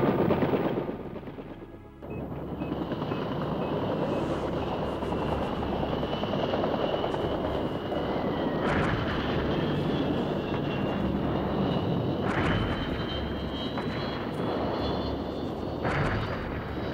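AH-64 Apache attack helicopters in flight: a steady rotor thrum with a faint high turbine whine that slowly rises in pitch. It opens with a louder rush that fades within about two seconds, and three short, louder blasts cut through about 9, 12 and 16 seconds in.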